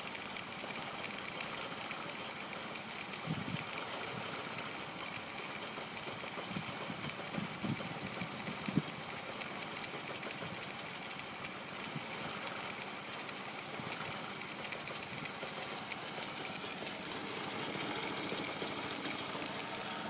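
Honda C70's single-cylinder four-stroke engine idling roughly, with a few uneven low knocks mixed into the steady running.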